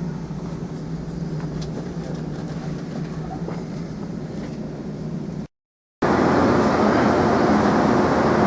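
Passenger train running, heard from on board: a steady rumble with a low hum. It drops out for half a second about five and a half seconds in, then comes back louder and brighter.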